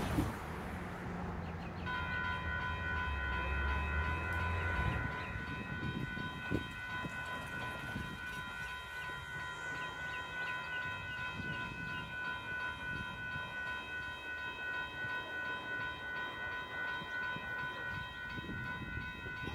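Railroad grade-crossing warning bell starts ringing about two seconds in and keeps ringing steadily, the crossing activating for an approaching train. Before and under its start, a car drives past over the crossing, and a single knock comes a few seconds later.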